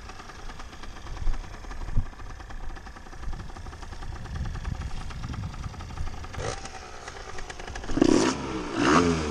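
50cc offroad moped engine running at a steady idle, with two short knocks about a second and two seconds in; near the end it is revved, its pitch rising and falling twice.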